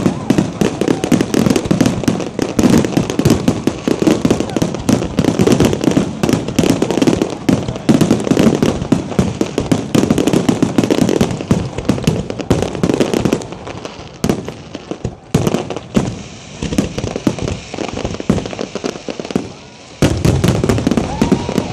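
Fireworks going off in a rapid, dense run of bangs and crackling. The barrage thins out for several seconds after the middle, then comes back dense and loud near the end.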